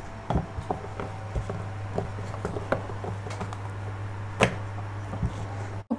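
Wooden rolling pin rolling out thin ashak dough on a kitchen counter: scattered light taps and knocks of the pin and hands on the board, with one sharper knock about four and a half seconds in, over a steady low hum.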